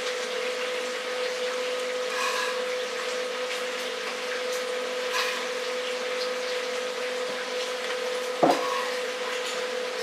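Indoor room noise: a steady hiss with a constant hum, faint scattered clicks, and one sharp knock about eight and a half seconds in.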